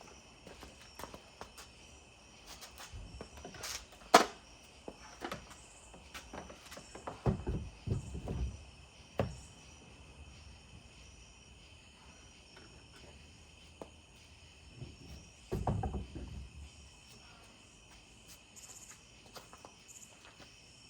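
Scattered clicks, knocks and clunks as a Minn Kota trolling motor on its quick release bracket is handled and set onto a kayak's bow mount, with a sharp knock about four seconds in and heavier thuds around eight and sixteen seconds. Insects chirr steadily and high-pitched underneath.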